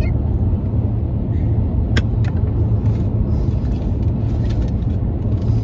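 Steady low rumble of a car's engine and road noise heard inside the moving cabin, with a single sharp click about two seconds in.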